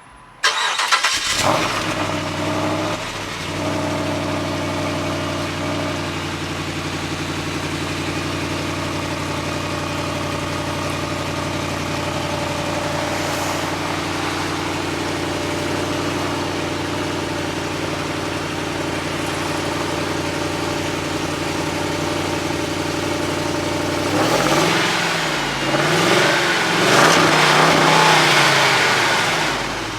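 Stock Jeep Grand Cherokee SRT8's 6.1-litre Hemi V8 starting up about half a second in with a brief high-idle flare, then idling steadily through its factory exhaust. Near the end it is revved several times, the pitch rising and falling.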